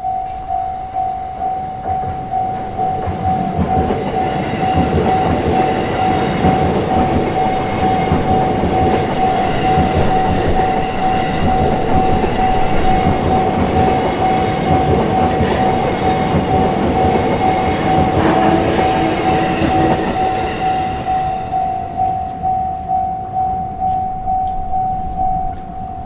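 Japanese railway level-crossing alarm ringing in quick, even dings on one tone. A silver-and-green electric commuter train passes over the crossing through the middle of it, its wheels and motors rumbling and clattering. The bell cuts off near the end.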